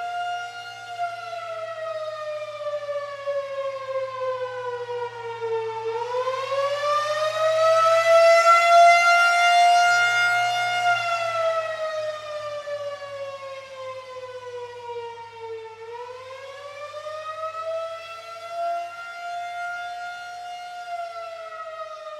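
Federal Signal 2001-SRN rotating outdoor warning siren sounding the Attack wail during a siren test. Its tone slowly falls and rises in pitch, twice, and swells loudest near the middle as the rotating head sweeps toward the listener.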